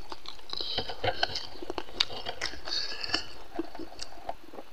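Close-up eating sounds: chewing, with small clicks and rustles as fingers pick food off a banana leaf.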